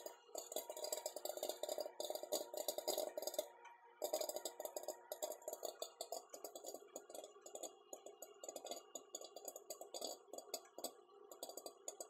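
Popcorn kernels popping in a glass microwave popcorn popper (Ecolution Micro-Pop), many sharp pops a second, over the steady hum of the running microwave oven. The pops grow sparser near the end as the popping nears its finish.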